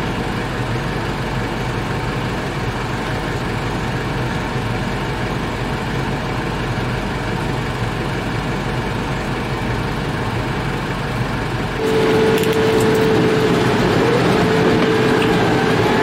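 Tractor engine running steadily, heard from inside the cab. About twelve seconds in it gets louder, with a steady whine added on top.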